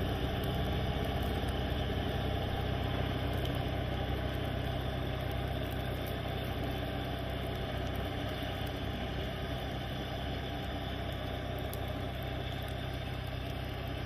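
Engine of a sidewalk tractor with a front-mounted snowblower, running steadily under load while the blower throws snow. It fades slightly as the machine moves off.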